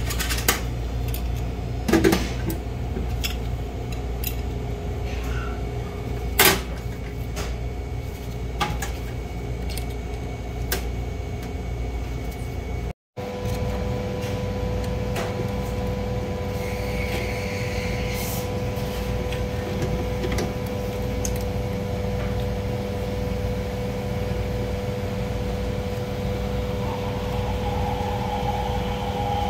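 A steady machine hum, with a few sharp knocks and clinks of metal tools and a fan motor being handled in the first half. After a brief dropout the hum carries a steady whine.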